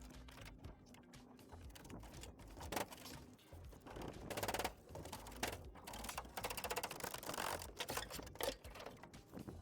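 Quick, irregular mechanical clicking and clattering, with louder stretches of clatter about four to five seconds in and again around seven seconds.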